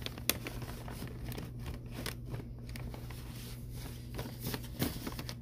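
Plastic dog-treat pouch crinkling and rustling as a hand rummages in it, in many short irregular crackles. A low steady hum runs underneath.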